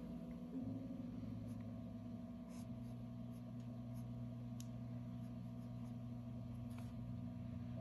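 Fountain pen nib scratching across paper as it writes, with faint scattered ticks over a steady low hum.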